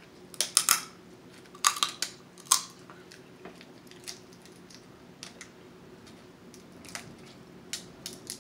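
Snow crab leg shells being snipped with kitchen scissors and cracked open: sharp crunching cracks, loudest in a cluster in the first three seconds, then lighter scattered ticks.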